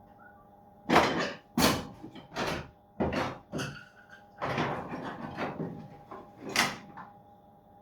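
3D-printed plastic parts being handled and rummaged through, a string of irregular clattering and scraping knocks starting about a second in.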